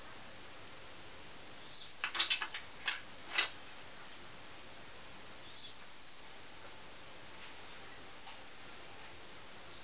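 A quick run of sharp clicks and taps about two seconds in, then one more about a second later, from small parts of a 1:50 scale model excavator boom being handled with pins and tweezers on a wooden desk. Faint high bird chirps twice over a steady background hiss.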